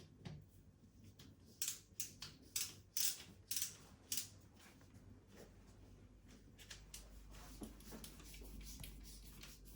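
A run of short, sharp scrapes and clicks as polyfiller is worked into the wall by hand, about a dozen in a few seconds, then fainter scraping.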